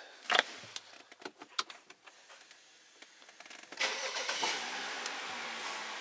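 A few clicks and knocks, then, a little under four seconds in, the BMW N55 turbocharged straight-six starts suddenly and settles into a steady idle, heard from inside the car's cabin.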